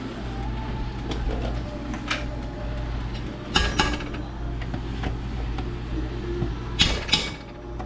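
A metal utensil clinking against a cast-iron pot while onions are stirred in butter, over a steady low hum: one clink about two seconds in, then two quick pairs of clinks, one near the middle and one near the end.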